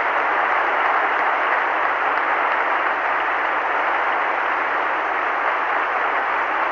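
Arena crowd applauding steadily after an ice-dance performance, a dense even clapping.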